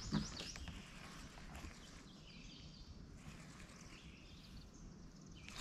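Fishing reel being cranked to retrieve a lure, heard faintly, with a couple of light clicks near the start.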